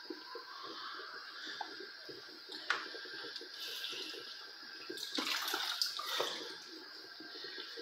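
Pot of ogbono soup boiling hard, a dense, irregular bubbling and popping. It grows louder and noisier for about a second around five seconds in.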